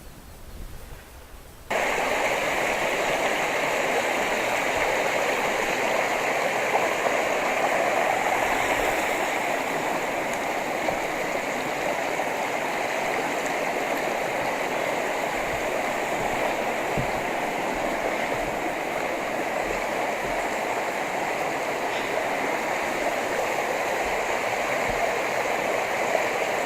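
Steady rush of flowing water from a moorland stream, cutting in abruptly about two seconds in after a quiet start.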